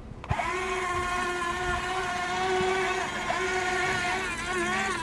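Huina 15-channel RC excavator's electric motors and gearboxes whining at a steady pitch, starting just after the beginning and dipping briefly in pitch about three seconds in and again near the end.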